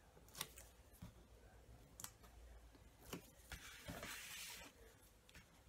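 Faint handling sounds at a craft table: a few light clicks and taps as the backing is picked off double-sided tear-and-tape with a pointed tool, then a brief soft rustle of cardstock being lifted and folded about four seconds in.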